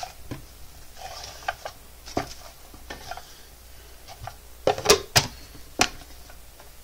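Handling noise: scattered clicks and light knocks of objects being moved and set down, with a few louder, sharper knocks about five seconds in.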